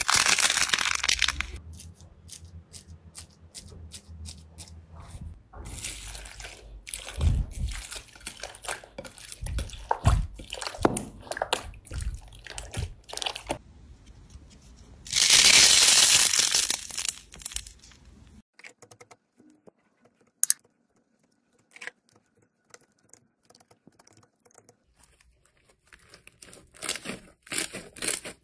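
Slime and a squishy toy being squeezed and kneaded by hand: crackling, popping clicks, with a loud hissing squish at the start and again about halfway. A stretch in the latter part is almost quiet, with only scattered clicks.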